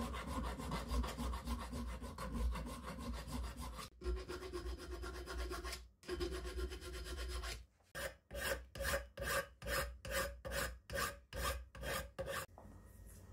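Hand file rasping across a metal locomotive wheel casting clamped in a vice, cleaning off the casting flash. The filing is a steady rasp at first, then turns into separate strokes about twice a second for the last few seconds.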